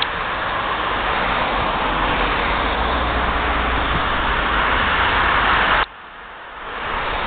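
Road traffic: cars driving past on a busy road, a steady noise of tyres and engines. It drops away abruptly about six seconds in and builds back up within a second.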